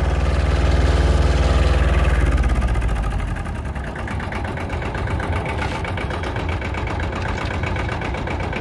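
A 16-horsepower compact tractor engine runs under load while pulling a plastic mulch film layer. About three seconds in it drops in pitch and level to a fast, even idle clatter.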